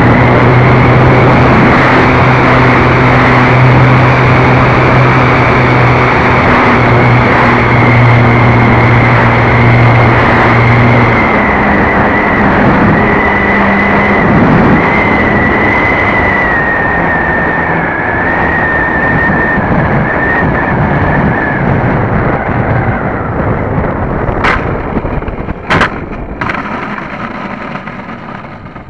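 Hype Cessna 400 Corvallis RC model plane in flight, heard from its tail: heavy wind rush on the microphone with the steady whine of the electric motor and propeller. About a third of the way in a lower hum drops out, later the whine sags slightly in pitch and the sound fades, with a few sharp clicks near the end.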